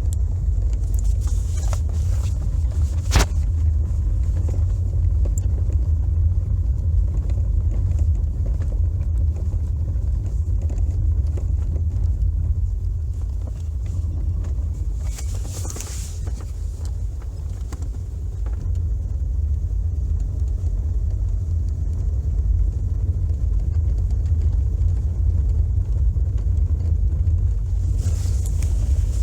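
Cabin sound of a 2010 Toyota Corolla driving over rough pavement: a steady low road rumble with a single sharp knock about three seconds in. The owner traces such knocks to a binding universal joint on the steering intermediate shaft, between the steering rack and the electric steering column.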